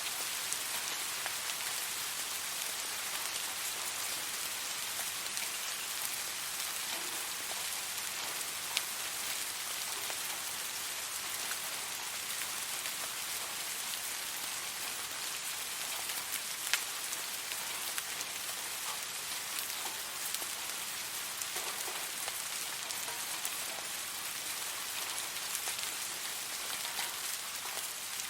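Steady rain falling and pattering on a surface, an even hiss with scattered individual drops ticking, the sharpest a little before 9 s and near 17 s.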